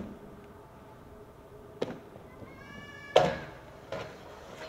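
Aggressive inline skates knocking onto a concrete ledge: a light knock, then a loud clack about three seconds in as the skater lands on the ledge, then a lighter knock. Just before the loud clack there is a brief high-pitched call.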